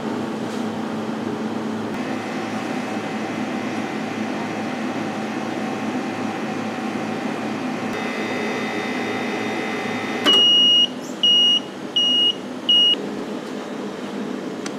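Ice cream machine running with a steady motor hum while it churns coconut ice cream mix; about ten seconds in, its timer gives four high electronic beeps, the first the longest.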